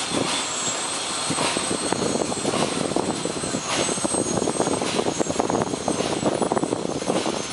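Maikok PB-3600-SA automatic breading machine for fine crumbs running under test: a steady mechanical clatter of rapid fine rattles, with a slight swell about once a second.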